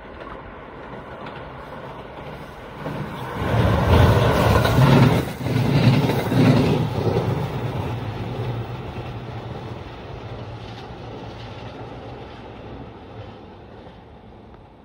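Train passing by. The rumble swells to its loudest about four to seven seconds in, then slowly fades away.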